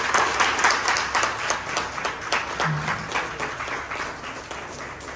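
A group of people clapping, dense at first and tapering off toward the end.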